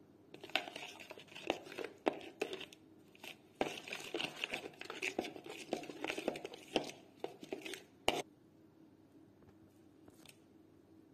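Metal spoon stirring a wet spice-and-sauce marinade in a plastic bowl: irregular scraping with sharp clicks of the spoon against the bowl, stopping suddenly about eight seconds in.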